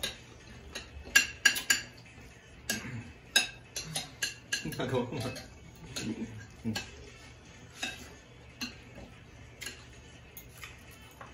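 Metal spoon and fork clinking and scraping against ceramic plates at a meal, as sharp irregular clinks scattered throughout. A few brief, low voice sounds come about halfway through.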